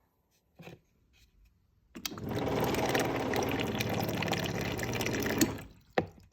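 Samsung refrigerator water dispenser running for about three and a half seconds: water flowing with a loud, steady hum over it, with a short click before and another click just after. The noise comes from the old water filter; it goes away once the filter is changed.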